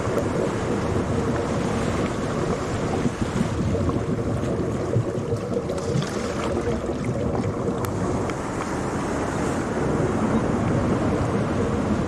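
Ocean sound: a steady rush of waves and surf, with a few faint clicks.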